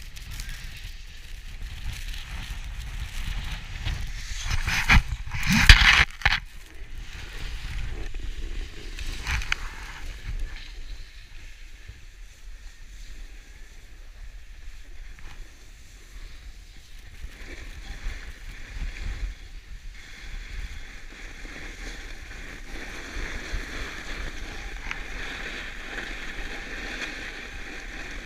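Wind buffeting an action camera's microphone while riding down a groomed ski slope, with the steady scrape of a board or skis sliding over packed snow. A much louder rush swells and cuts off about five to six seconds in.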